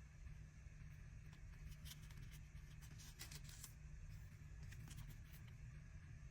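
Faint crinkling and light clicks of a CD single's packaging and inserts being handled during an unboxing, in scattered clusters over a low steady hum.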